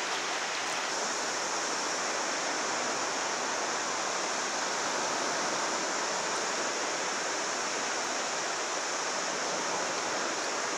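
Steady rushing noise of sea surf on the beach, even throughout, with a constant high hiss on top.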